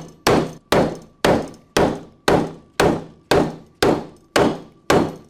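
Hammer blows on a steel setting tool, final-setting the plates of rivet hinged conveyor belt fasteners. The blows are sharp, evenly paced and come about two a second, each with a short metallic ring.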